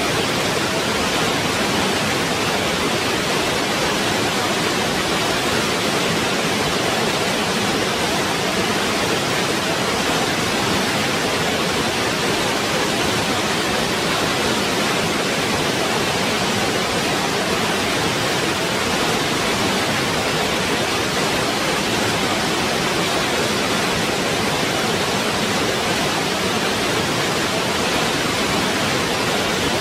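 Waterfall: falling water rushing in a steady, even roar that does not change.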